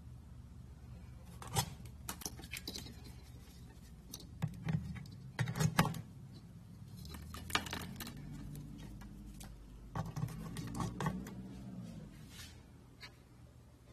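Scattered clicks, knocks and light clatter of hard objects being handled, loudest in two clusters, about five seconds in and again about ten seconds in, over a steady low hum.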